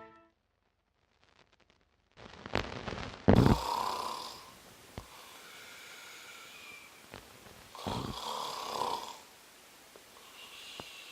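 A person snoring, one snore about every four to five seconds, with a short rustle just before the first.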